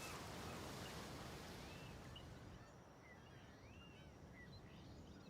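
Very faint ambience: a soft hiss that fades out about two and a half seconds in, with a few short, scattered bird chirps.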